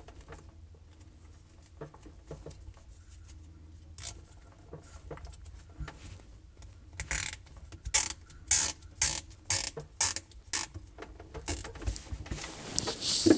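Nylon zip tie being ratcheted tight around a bundle of refrigerator sensor wires. After some quiet handling, about eight short ratcheting pulls come roughly two a second, and a knock follows near the end.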